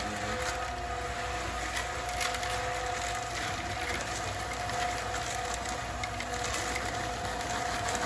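Ryobi portable concrete mixer running, its motor giving a steady whine while the drum churns concrete mix, with the scattered small clatter of gravel tumbling in the drum.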